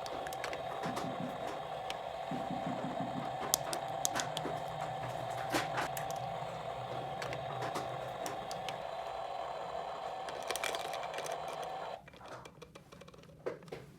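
Scattered light clicks and taps over a steady hum; the hum stops about twelve seconds in, leaving only faint clicks.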